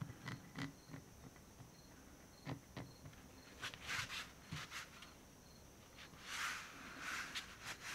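Paper towel rubbing over a chrome ratchet handle, wiping off dried lacquer fill-in paint that is slow to come off, in two short spells of quick rubbing strokes. Small clicks of the steel ratchet being handled on the bench come before.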